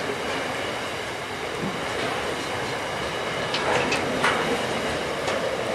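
Freight train of empty container flat wagons rolling past, a steady rumble and rattle of wheels on the rails. A few short, sharp metallic sounds come between about three and a half and four and a half seconds in.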